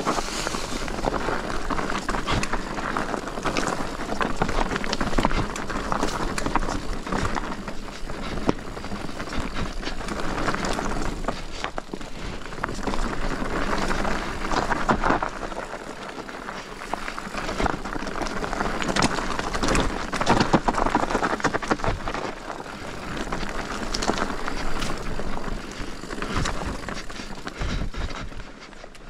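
Commencal Meta TR mountain bike descending a dirt bike-park trail: steady tyre and rolling noise that rises and falls, with frequent sharp knocks and rattles from the bike over bumps.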